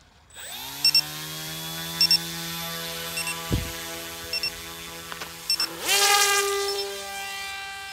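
The ZOHD Dart XL's brushless electric motor and propeller spin up about half a second in and hold a steady low whine, with short beeps every second or so. Near six seconds in the motor revs sharply up to launch power as the plane is thrown, then runs on steadily.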